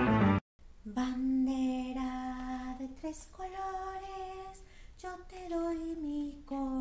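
Instrumental intro music cuts off about half a second in; after a brief gap a woman's voice sings a few slow, long-held notes with no accompaniment.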